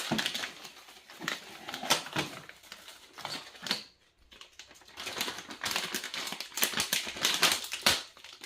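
Crinkling and rustling of the kit's plastic parts bags and paper packaging being handled and unpacked: a run of irregular clicks and crackles, with a brief lull about four seconds in.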